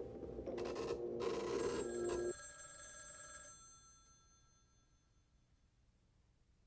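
Telephone bell ringing that cuts off about two seconds in, its tone dying away over the next second, then near silence.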